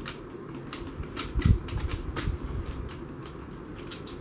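Scattered light clicks and taps of an SABRE M20 foam-dart blaster's shell halves being worked apart by hand, with a duller knock about a second and a half in.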